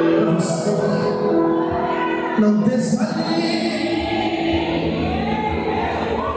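Live gospel singing by a man into a microphone over musical accompaniment, with long held notes.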